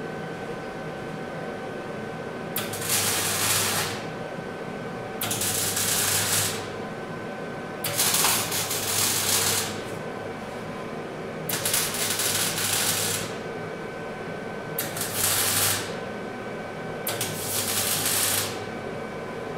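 Six short bursts of MIG welding, each about a second long with a crackle and a low buzz, as brackets are tacked onto the frame.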